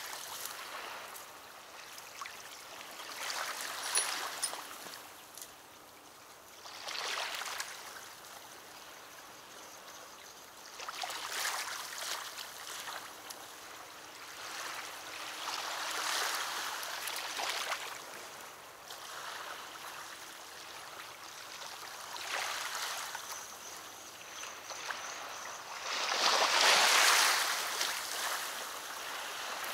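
Small river waves lapping and washing against the shore in irregular swells every few seconds, the loudest near the end.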